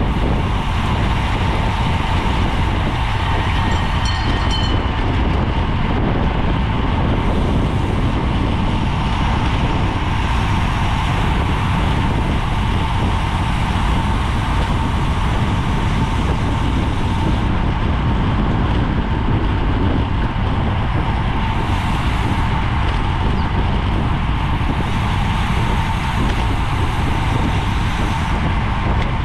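Steady wind noise on a GoPro microphone carried on a bicycle at race speed, a heavy, unbroken rush with a thin steady whine running through it.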